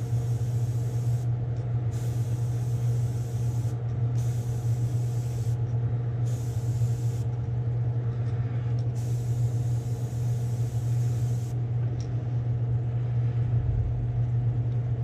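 Iwata airbrush spraying paint at low pressure in five short trigger passes of hiss, each one to two seconds long, with the last the longest. A steady low hum runs underneath.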